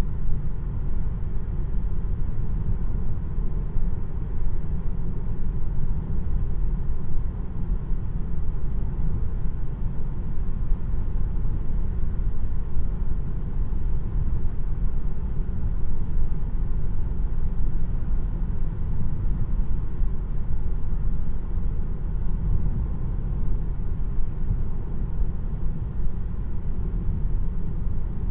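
Cabin road noise in a Tesla Model 3 RWD electric car on the move: a steady low rumble of tyres on the road, heard from the driver's seat.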